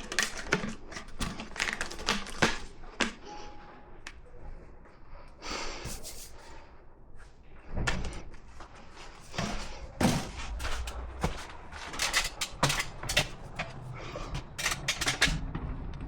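Irregular knocks, clunks and clatters of hand tools and parts being handled on the job, with a short scraping hiss about six seconds in.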